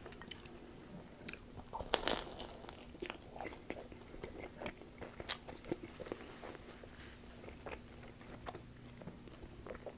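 A person biting and chewing pizza close to the microphone: irregular crunchy, wet mouth clicks, with one louder crunch about two seconds in.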